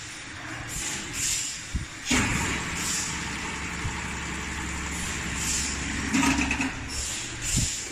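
Motor-driven pump on a sprinkler pressure-test rig starting about two seconds in and then running with a steady low hum.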